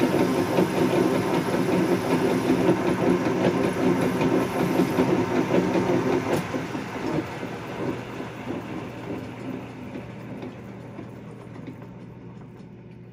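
LeBlond metal lathe running with a steel bushing spinning in its chuck while a light cleanup pass is taken. About six seconds in it gets quieter and keeps fading as the lathe winds down.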